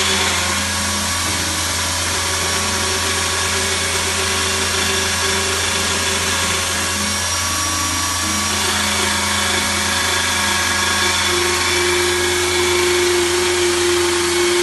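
Lathe running with its cutting tool machining a traction-motor cooling-fin ring held in a four-jaw chuck under coolant: a steady low hum with a whining cutting tone that drops out and comes back.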